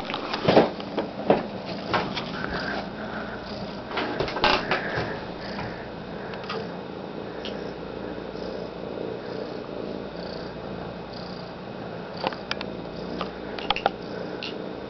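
Domestic cat purring steadily, with a few sharp clicks and taps, most of them in the first few seconds and again near the end.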